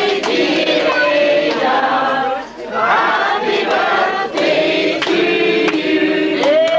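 A roomful of party guests singing together, long held notes from many voices with a brief dip for breath about two and a half seconds in. The sound is dulled by an aged videotape recording.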